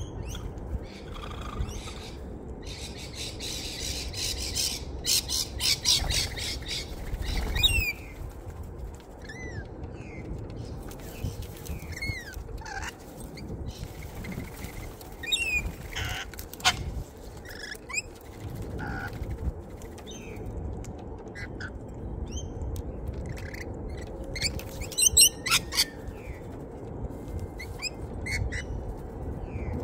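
Mixed flock of corellas, pigeons and green parrots at a seed feeder: harsh squawks and short falling chirps with occasional wing flaps, and a loud burst of rapid repeated calls about 25 seconds in.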